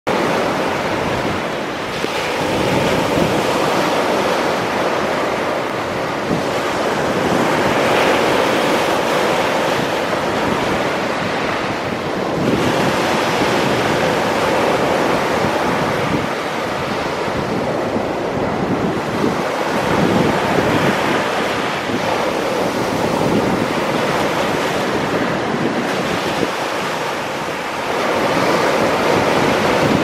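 Black Sea surf breaking on a shingle beach and washing back over the pebbles, swelling in surges every four or five seconds.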